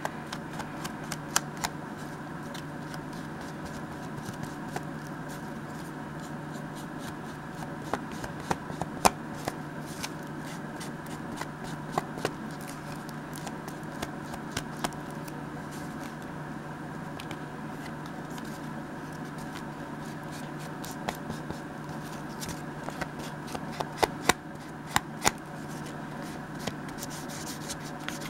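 Paper being handled and its edges distressed by hand: scattered light ticks and scrapes that come more thickly about a third of the way in and again near the end, over a steady low hum.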